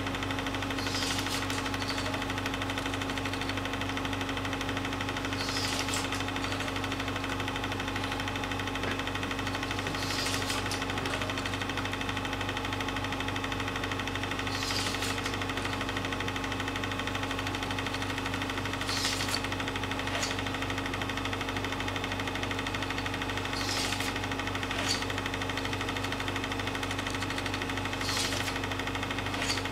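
Film projector running: a steady motor hum and whir, with a short high hiss about every four to five seconds.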